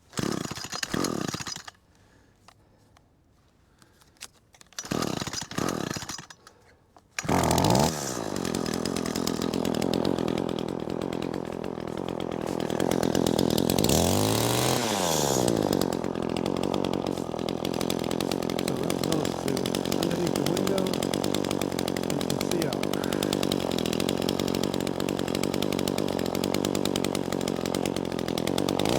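Small two-stroke engine of a handheld power tool. It runs briefly twice and cuts out, then catches about seven seconds in and runs steadily, its speed dipping and coming back up once near the middle.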